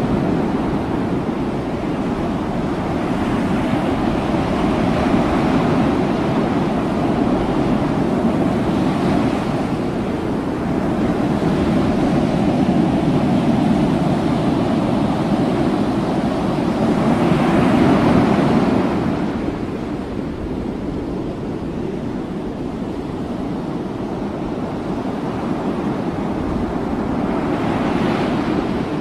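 Wind buffeting the microphone over a steady rush of open sea. The noise swells louder several times, most strongly a little past halfway.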